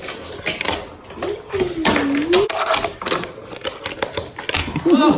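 Skateboards clacking and rattling: a rapid run of sharp clicks and knocks from boards, trucks and wheels on the ground. A short voice call rises and falls about two seconds in.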